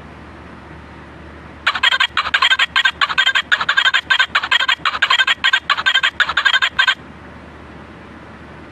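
High-pitched, rapid warbling chatter from audio played back at triple speed. It starts about two seconds in and breaks off suddenly about seven seconds in, over a low steady hum.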